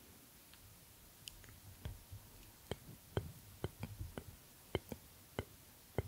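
A run of about a dozen sharp, irregular clicks close to the microphone, with soft low bumps between them, from a person holding the microphone against his chest and shifting slightly.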